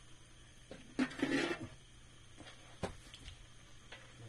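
A metal utensil working in a wok of frogs: one short scrape about a second in, then two light clicks against the metal.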